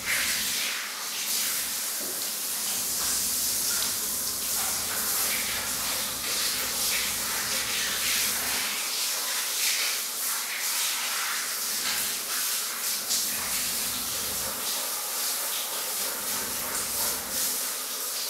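Water from a handheld shower head spraying steadily onto a wet dog's coat and the tiled shower floor.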